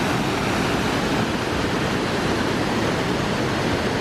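Waterfall rushing, a steady, even wash of water noise.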